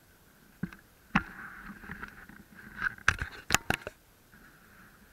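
Handling noise from a camera being adjusted on a metal railing: a few sharp knocks and clicks close to the microphone, several clustered a little over three seconds in, over a faint steady outdoor hiss.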